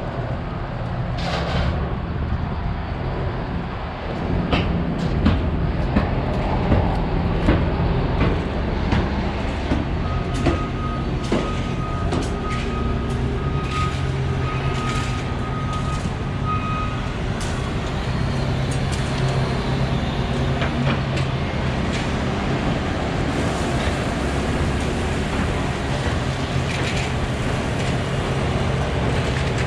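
Heavy construction machinery running: a steady diesel drone with scattered clanks and knocks. A steady high tone sounds for about seven seconds around the middle.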